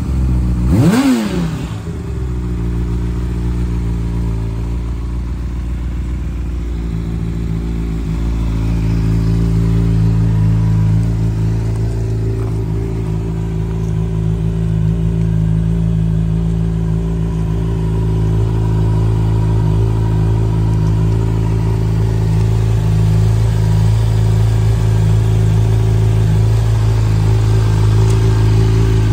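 Honda CBR600RR's inline-four engine revved briefly once about a second in, then idling steadily.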